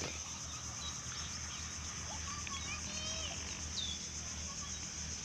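Outdoor ambience with several birds calling in short chirps and whistles, over a steady high hiss and a low rumble.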